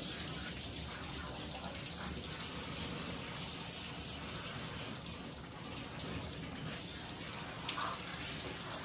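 Water running steadily into a tub.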